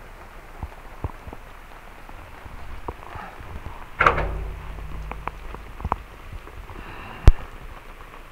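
Rain pattering on a car's roof and windshield, heard from inside the cabin, with scattered sharp drop ticks. About four seconds in comes a louder rush with a low rumble, and about seven seconds in a single sharp knock, the loudest sound.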